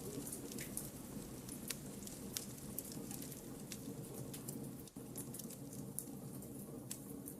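Wood campfire burning with a steady low rumble and frequent sharp crackles and pops from the logs.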